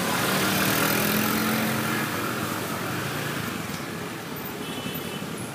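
Several motor scooter engines running at low speed, one engine's note rising slightly in the first two seconds and then easing off.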